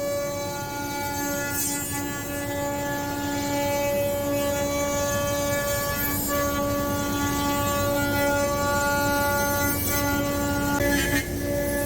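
CNC router spindle running with a steady, high whine while cutting a laminated wooden handlebar blank, the tone shifting slightly a couple of times as the cut changes.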